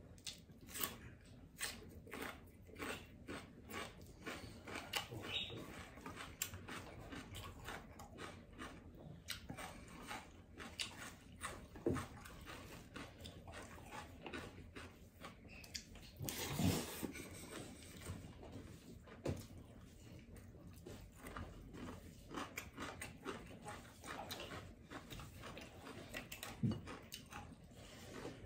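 Close-up eating sounds of a person chewing a mouthful of rice, dal and chhoila eaten by hand: many irregular wet smacks and clicks of the mouth, with a louder stretch of chewing a little past halfway.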